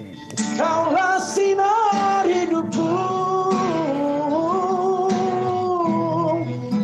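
A man singing a slow Malay ballad in long held, wavering notes, accompanying himself on acoustic guitar; after a short breath at the start, the voice slides up into the next phrase.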